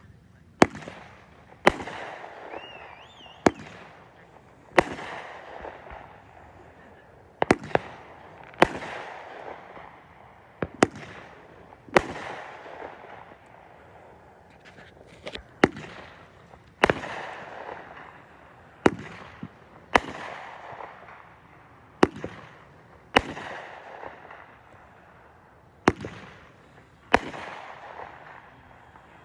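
Consumer fireworks going off in a steady series: sharp bangs about every second or two, each trailing off over about a second.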